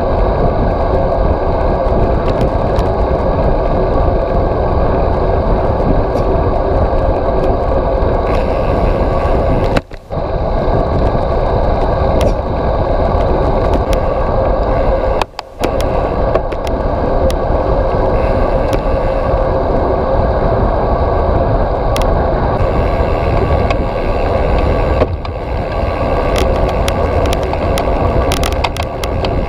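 Steady rushing wind and road noise on a bicycle's handlebar-mounted camera while riding, with scattered small clicks and rattles that grow more frequent near the end. The noise drops out briefly twice, about ten and fifteen seconds in.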